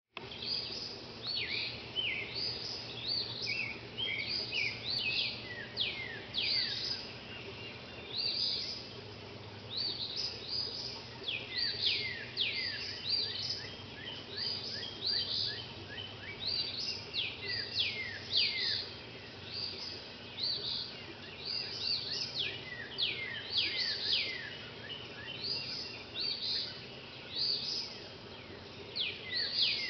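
Dawn chorus of songbirds: many short, quick notes sweeping down in pitch, overlapping and repeating without a break, over the steady splash of a water fountain.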